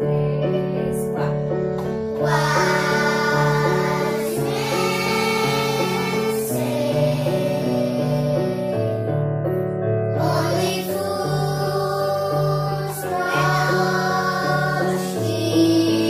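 A group of children singing together over electronic keyboards playing held chords and a melody. The sung phrases come in about two and a half seconds in, in several lines with short breaks between them.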